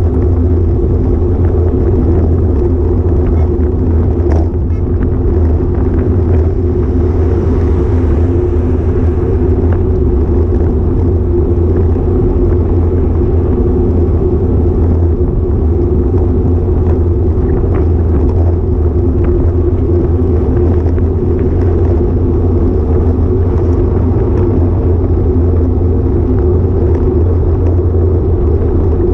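Wind buffeting and road vibration on a bike-mounted GoPro Hero5 Session while riding: a loud, steady low rumble that doesn't let up, with a few faint ticks.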